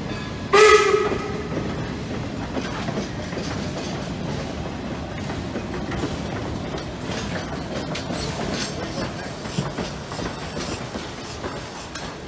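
A steam passenger train, its wooden coaches and oil-burning 4-4-0 replica locomotive, running past over a grade crossing, wheels clicking on the rails. About half a second in, a brief loud ringing tone sounds and fades within a second.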